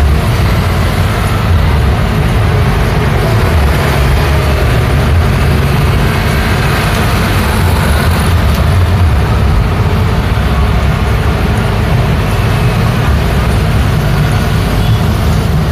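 City street traffic: motor scooters and cars passing, making a steady rumble of engines and tyres with no single vehicle standing out.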